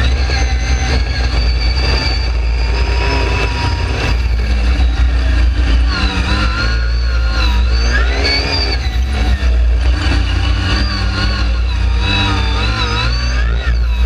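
Dune buggy engine running and revving up and down repeatedly as it drives over sand, with a heavy low rumble of wind on the microphone underneath.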